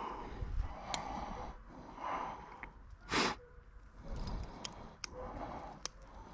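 A person breathing heavily close to the microphone, with one short, loud, sharp exhale about three seconds in and a few faint clicks.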